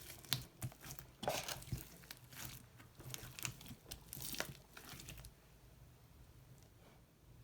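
Slime being mixed, making crackling, popping sounds in a string of short bursts that die down about five seconds in.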